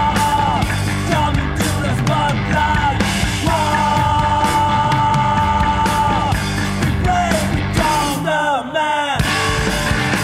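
Noise-pop band playing loud, dense rock, with long held high notes and sliding, bending lines over it. About eight seconds in, the low end drops away for a moment before the full band comes back in.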